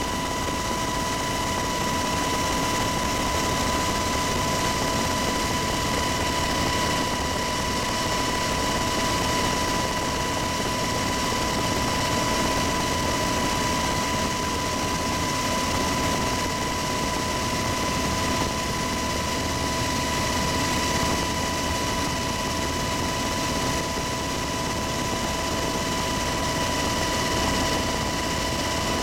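Military helicopter in flight heard from inside its cabin: the even rush of the turbine engines and rotor, with a steady high whine layered over it.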